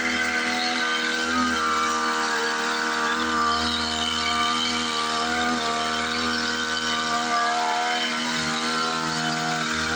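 Small engine of a motorized sprayer running steadily while livestock are sprayed against fleas and lice, its pitch wavering slightly.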